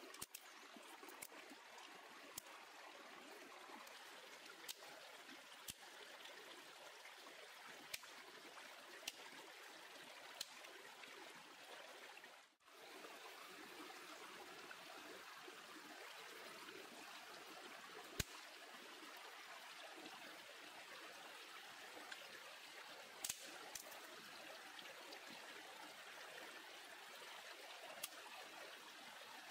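Faint, steady rush of a small stream, with a dozen scattered sharp clicks, the loudest about eighteen seconds in. The sound drops out briefly about twelve seconds in.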